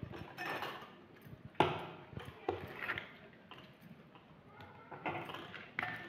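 Light, irregular clicking and clinking of hand beadwork: beads threaded onto a needle and glass bangles on the wrists knocking together, with one sharper knock about one and a half seconds in.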